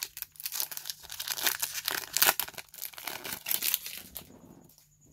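Foil booster-pack wrapper crinkling in the hands as trading cards are handled, a dense run of crackles that dies away about four seconds in.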